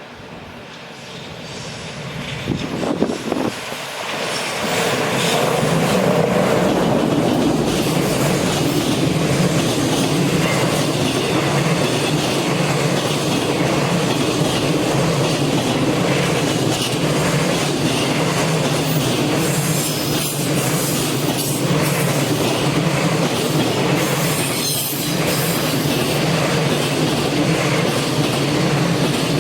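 A JR Freight EF210 'Momotaro' electric locomotive and its long freight train passing close by. The sound builds over the first five seconds as the train arrives, then holds as a steady loud run of wheels on rails.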